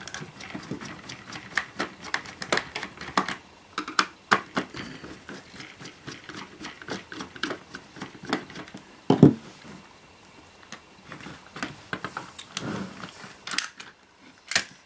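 A screwdriver undoing the small screws on the plastic rear cover of an in-flight entertainment handset: irregular clicks, scrapes and short squeaks as the screws turn, with a few louder knocks as the unit is handled.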